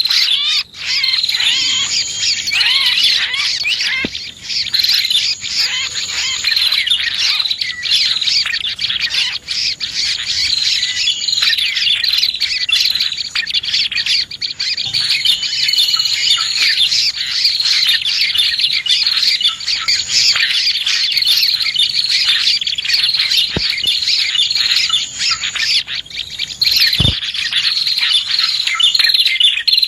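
Small songbirds chirping and trilling in a dense, continuous chorus: a bird-lure recording of prinias (prenjak) and other small birds, many rapid high chirps overlapping without pause.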